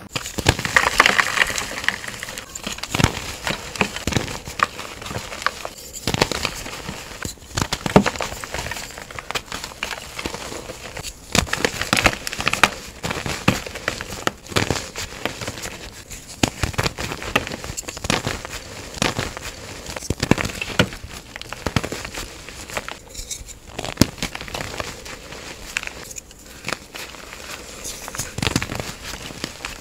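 Blocks of gym chalk crushed and crumbled between the fingers: a continuous dry, crackling crunch with frequent sharper snaps as the chunks break into powder.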